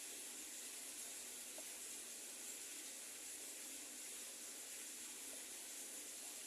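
Faint steady hiss of room tone and microphone noise, with no other sound.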